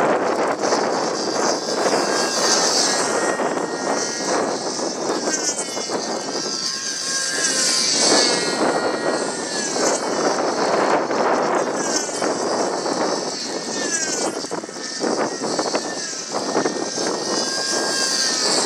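Small engine of a control-line stunt model airplane running steadily as the model flies round its lines through aerobatic loops, its pitch sweeping up and down again and again as the plane passes and changes direction.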